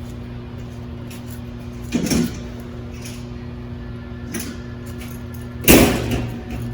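Clunks from working on a car wheel over a steady low hum: a sharp knock about two seconds in, a fainter one later, and a louder clank with a short ring near the end.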